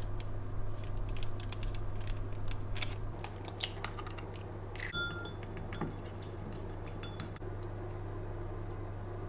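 Light clicks and taps of small hard objects being handled, with one brief ringing clink about five seconds in, over a steady low hum.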